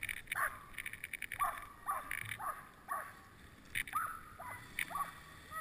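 Huskies yipping, a string of short, high, falling yips about once or twice a second, over the crunch and scrape of a dog sled running on snow.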